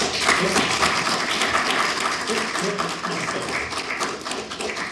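Lecture-hall audience applauding, starting all at once and gradually dying away.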